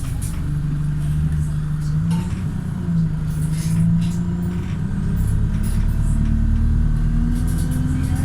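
Wright StreetLite single-deck bus's diesel engine running under way, its note climbing steadily over the second half as the bus accelerates. Short rattles and clicks come through here and there.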